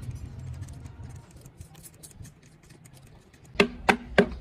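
A quick run of four sharp knocks, about three to a second, near the end, over a faint low hum.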